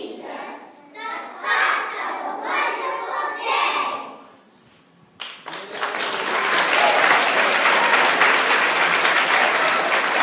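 A group of young children's voices calling out together for about four seconds, then a brief pause, then audience applause starting about five seconds in and continuing steadily.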